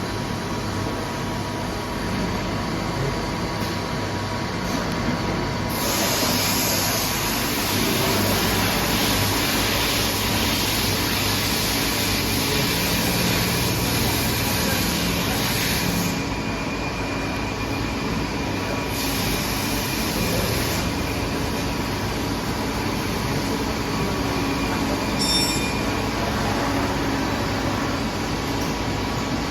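Steady machinery noise with a thin whine near 1 kHz. A high hiss comes in about six seconds in, drops out around sixteen seconds, and returns briefly a few seconds later.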